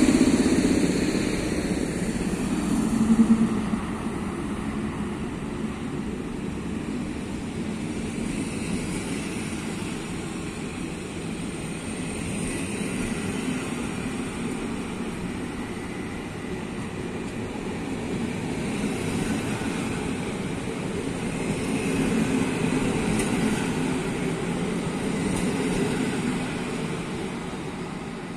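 EP07 electric locomotive pulling a passenger train out, its running noise loudest in the first few seconds, then the coaches' wheels rolling past on the rails in a steady rumble that fades as the last coach moves away near the end.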